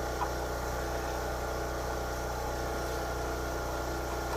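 Portable generator running steadily, with one light click just after the start.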